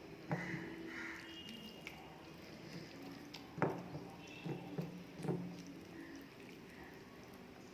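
Close-up eating sounds: a person chewing rice and brinjal curry, with a few short wet clicks and squishes, the loudest about 3.6 seconds in and a small cluster a second or so later.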